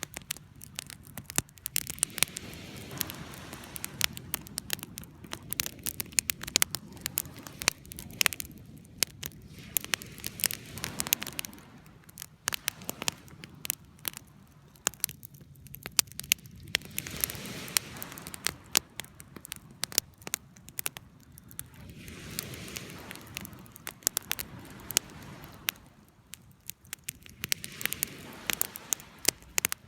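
Wood fire burning in a fireplace, crackling with frequent sharp pops and snaps over a soft low rush of flame that swells and fades.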